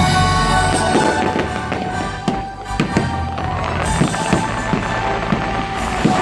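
Fireworks going off in a quick, irregular series of sharp bangs, about a dozen, over loud show music playing steadily underneath.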